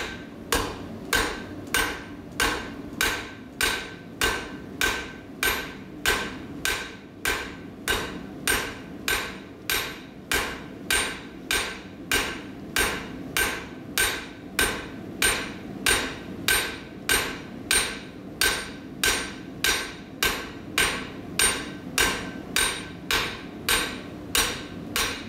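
The flat face of a cross peen hammer striking hot 1/2-inch square steel bar on the flat face of an anvil, about two blows a second in a steady rhythm, each with a short metallic ring: roughing out a taper.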